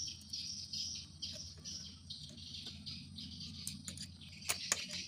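Continuous high-pitched chirping, as of crickets, over a low steady hum. Near the end come a few sharp metal clicks as the retaining pin is fitted onto the motorcycle's kick-starter shaft.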